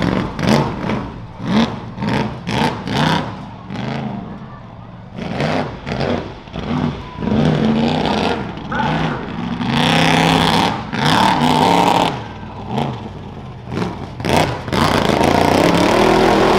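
Rough-truck race truck engine revving up and easing off again and again as it is driven over a rough dirt course, its pitch climbing and dropping with the throttle, with longer stretches held at high revs about ten seconds in and near the end.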